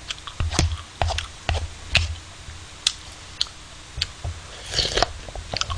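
Close-miked eating sounds: a spoon taking Almond Bonbon ice cream from a paper tub and lips and mouth smacking and chewing, heard as irregular small clicks and soft thumps, with a short cluster of wetter noise about five seconds in.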